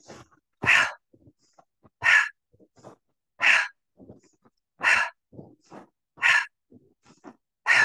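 A woman doing a qigong breathing exercise, breathing in and then pushing out hard, sharp exhales in a steady rhythm, about one every second and a half, with faint inhales between them.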